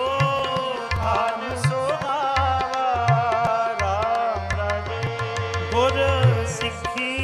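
Sikh devotional shabad kirtan music: tabla strokes, the bass drum's pitch gliding, under a wavering melody line.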